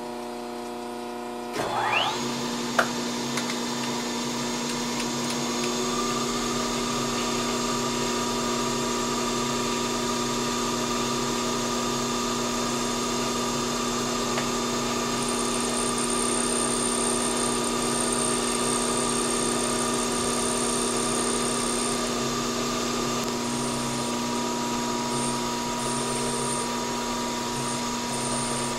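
Milling machine spindle running steadily as an end mill cuts the top off a laser-welded metal butterfly laser diode package. It is a motor whine with several steady tones, with a short rising sweep about two seconds in as it speeds up. A faint high whistle comes and goes in the second half while the cutter takes metal.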